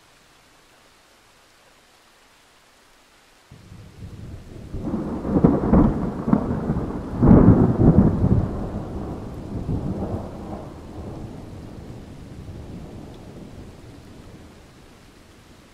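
A roll of thunder over faint steady rain. It breaks in suddenly about three and a half seconds in, swells to two loud peaks, then rumbles away slowly over about ten seconds.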